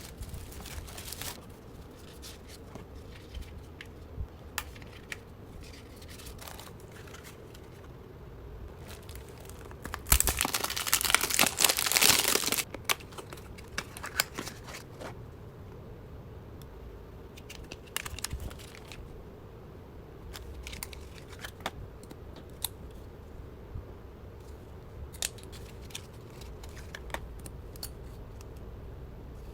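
Packaging being unwrapped and handled: scattered light clicks and taps, with a loud stretch of paper or plastic wrapping tearing and crinkling for about two seconds, about ten seconds in.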